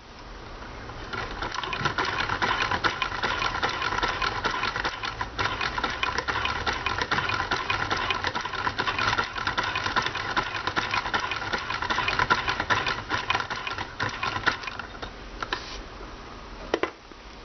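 Junior Miss toy sewing machine running and stitching: a fast, steady mechanical clatter that starts about a second in and stops a few seconds before the end, followed by a few single clicks.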